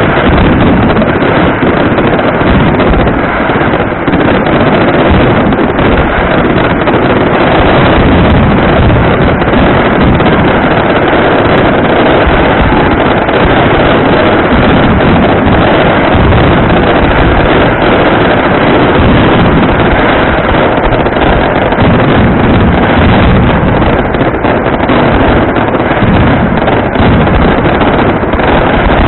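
Fireworks finale: many aerial shells bursting at once, so densely that the blasts merge into one continuous, very loud rumble with no gaps.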